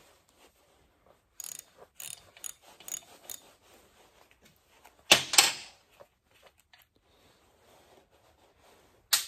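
Hand tools working on the flywheel and flyweight assembly of an old Curtis air compressor: a run of light metallic clicks, then two sharp metal clanks about five seconds in, and one more clank near the end.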